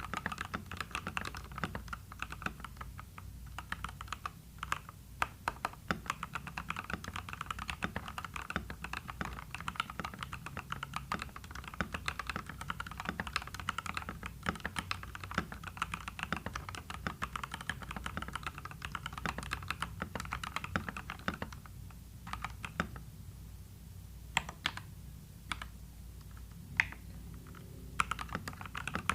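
Fast, continuous typing on a mechanical keyboard fitted with slightly lubed Gateron Pro Yellow linear switches in a foam-dampened case. About three-quarters of the way through it thins to a few separate keystrokes, then picks up again near the end.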